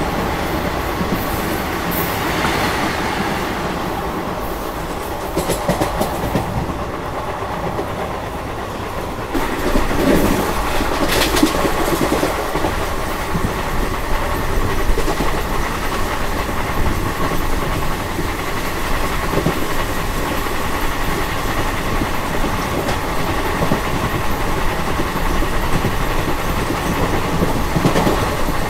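Indian Railways express train with ICF passenger coaches running along the line: a steady rumble with wheels clattering over the rail joints. It gets louder about a third of the way in and stays louder.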